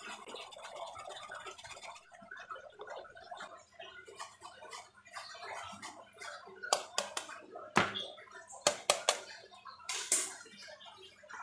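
A small white block rubbed by hand on a metal grater into a plastic bowl, a quiet rasping scrape. From about six and a half seconds in comes a run of sharp taps and clicks, several close together, the loudest near eight seconds.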